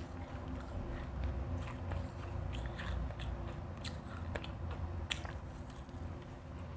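Close-miked biting and chewing of refrozen crushed ice: a string of sharp, irregular crunches with a low rumble underneath.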